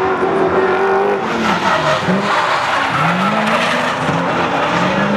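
Drift cars in a tandem run, sliding with their engines revving hard. The pitch climbs and falls several times over a steady screech of spinning, skidding tyres.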